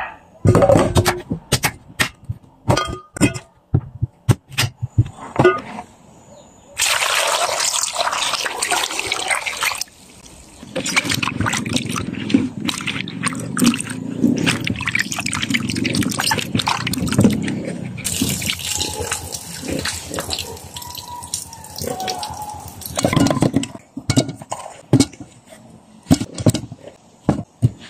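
A knife chops through taro corms on a wooden cutting board in a run of sharp knocks, then water pours and hands slosh and rub the pieces in a basin of water. Near the end the pieces clunk as they are dropped one by one into a metal cooking pot.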